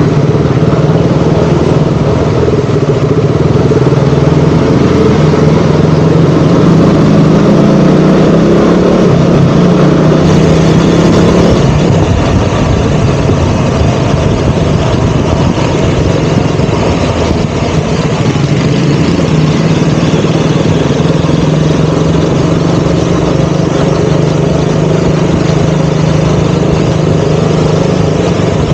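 KTM Duke 200's single-cylinder four-stroke engine running under way, its pitch rising a little and then easing back about ten seconds in before holding steady, over a constant rush of wind and road noise.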